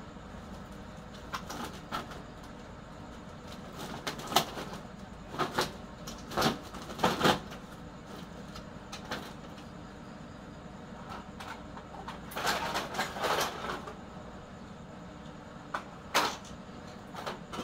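Computer motherboards knocking and clattering against each other as they are handled and packed into a woven plastic sack, with the sack rustling; a denser run of clatter about two-thirds of the way through, over a steady low background hum.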